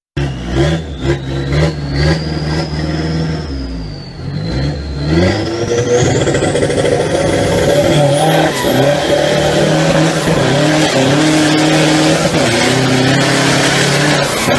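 Off-road vehicle engine revving hard under load, its pitch shifting up and down, with a high whine that rises steadily.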